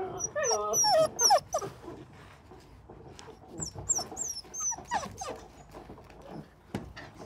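Belgian Malinois puppies whining: short, bending high-pitched cries, a burst in the first second and a half and another around four to five seconds in.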